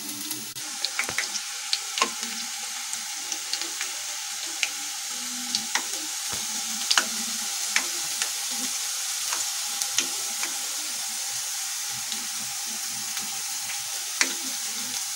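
Thin potato and gram-flour bhujiya strands deep-frying in hot oil in a steel kadhai: a steady sizzle with scattered sharp crackles.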